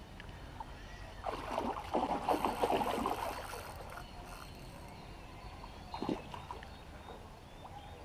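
Hooked fish splashing and thrashing at the surface close to the bank, in a loud burst of about two seconds and then a shorter splash a few seconds later.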